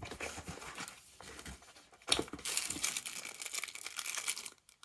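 Plastic packaging being handled and crinkled, with scattered clicks and rustles at first, then a sharp crackle about two seconds in and steady crinkling that stops shortly before the end.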